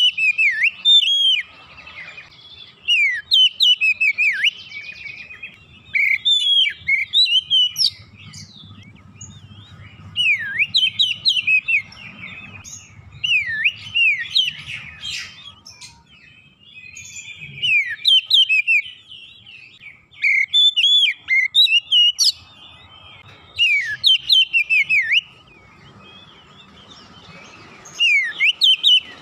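Oriental magpie-robin singing in repeated bursts of rapid, varied whistled notes that sweep up and down. Each phrase lasts one to a few seconds, with short pauses between; this is a caged bird in vigorous full song.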